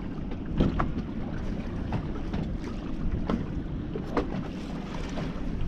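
Wind buffeting the microphone on a small anchored fishing boat, a steady low rumble, with a few light knocks scattered through it.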